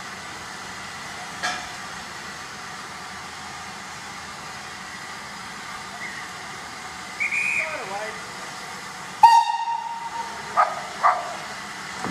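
Steam locomotive No. 1638 hissing steadily as it moves along the platform. A brief high whistle sounds a little after seven seconds, then the locomotive's steam whistle gives a loud blast of about a second at about nine seconds, followed by two short toots.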